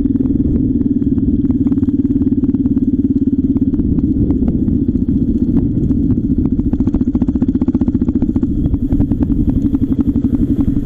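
Trail motorcycle's engine running steadily at low speed under the rider, with a rapid pulsing beat and light ticks and rattles; the pulsing grows more pronounced near the end.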